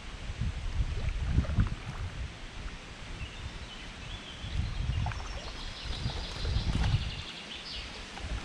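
Braca VII Max carbon kayak paddle taking strokes in calm water, each blade entry a short splash, over low gusty wind rumble on the microphone. A bird sings in short high phrases from about three seconds in.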